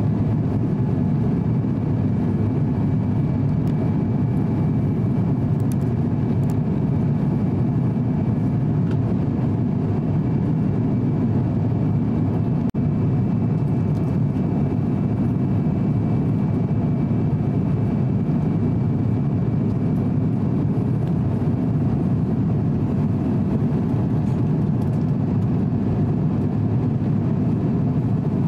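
Steady cabin roar of an Airbus A350-900 airliner in flight: Rolls-Royce Trent XWB engine and airflow noise heard from a window seat, with a faint high whine above it. The sound cuts out for a moment about halfway through.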